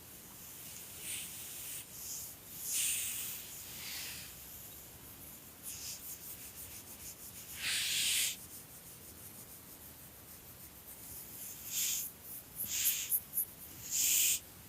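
Irregular soft rustling and rubbing: short scratchy, hissy bursts every second or few, bunching up near the end with a few sharp clicks.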